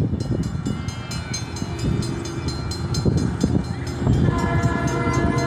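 Grade-crossing warning bell ringing in rapid, even strikes as the crossing activates for an approaching train. About four seconds in, the train's air horn comes in, sounding a steady chord of several notes over a low rumble.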